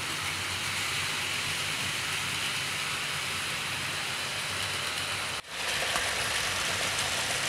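00 gauge model trains running, a steady rumble and hiss of metal wheels on the rails and the locomotives' small electric motors, with freight wagons rolling behind. The sound breaks off for a moment about five and a half seconds in, then carries on.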